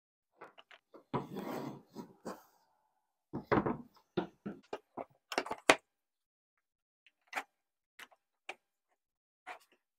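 Band clamp being fitted around a glued-up wooden picture frame: the strap rubs and slides, then the clamp's corner blocks knock and click against the wood in a quick cluster. Near the end come a few single clicks spaced about half a second to a second apart.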